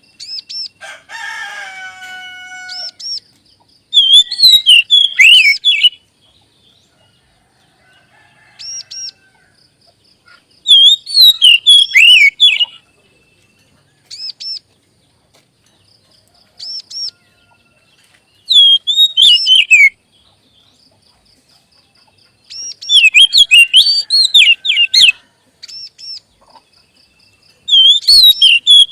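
Magpie-robin (kacer) song used as a lure recording: loud bursts of rapid, sweeping whistled phrases, each about two seconds long, separated by short pauses filled with runs of faint, high repeated chip notes. A lower, harsher call sounds about a second in.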